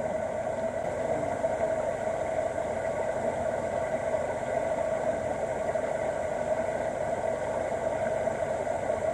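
River water running over rocks in a shallow stream, a steady rushing.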